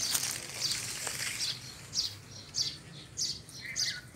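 Small birds chirping: short, high, falling notes repeated about twice a second. A hissing rush of noise fills the first second and a half before the chirps take over.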